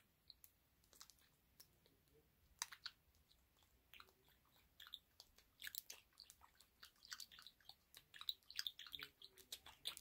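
Budgie nibbling at the tip of a plastic pen: soft, quick beak clicks and scrapes, sparse at first and more frequent in the second half.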